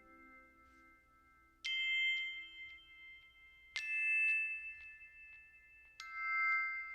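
Background music of soft chime notes: three bell-like tones struck about two seconds apart, each ringing on as it fades.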